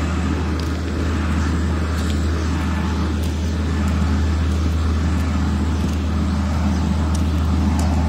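Motor engine running steadily with a low, unchanging rumble.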